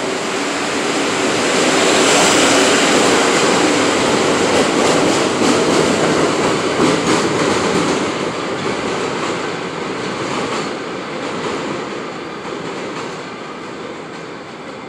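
New York City Subway 6 train of R62A cars pulling out along the platform and running away: wheels and motors loudest a couple of seconds in, then a run of wheel clacks over rail joints in the middle, the sound fading as the train recedes.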